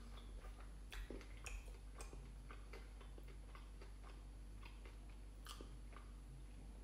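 Quiet, close mouth sounds of a person chewing fried chicken, with scattered small clicks and smacks.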